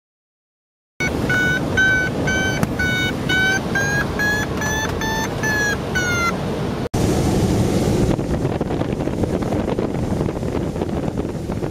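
Glider's audio variometer beeping in short tones, about three a second, its pitch creeping up and then dipping before the beeps stop about six seconds in: the climb tone of a glider rising in lift. Wind rushes over the microphone the whole time and runs on alone after the beeping.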